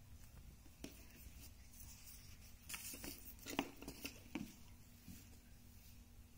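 Faint handling sounds of a Redmi 8 phone in an anti-shock case being picked up and turned over on a table: a few light clicks, then a cluster of taps and rustles about three to four seconds in. A faint steady hum sits underneath.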